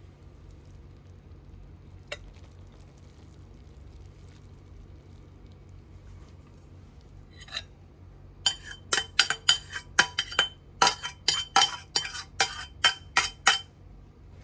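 Utensil clinking against a dish in quick repeated strikes, about three a second, as the instant noodles are stirred and mixed, after a couple of single taps.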